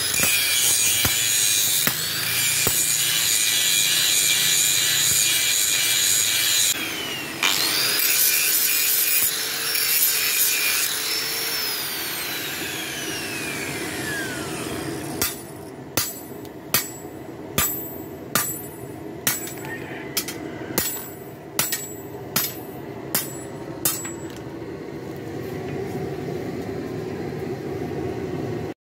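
Electric angle grinder with an abrasive disc grinding a steel badik blade made from an old diesel-engine bearing, with a high grinding rasp. About eleven seconds in the grinder is switched off and winds down in a falling whine. It is followed by a run of about fourteen sharp taps, roughly one every 0.7 s, and then a low steady hum.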